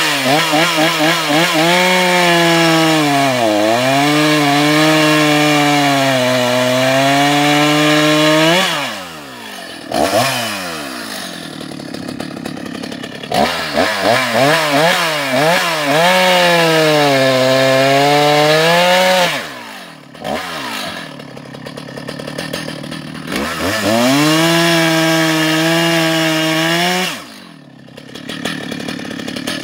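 Husqvarna 281 XP two-stroke chainsaw making three long cuts through logs at full throttle, its pitch sagging and recovering as the chain loads up in the wood. Between cuts it drops back toward idle with a few quick throttle blips.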